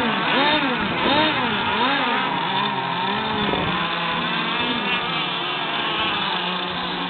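Two-stroke engines of radio-controlled model racing boats revving up and down in quick repeated blips, about one and a half times a second. From about four seconds in the sound settles into a steadier engine drone with smaller swells.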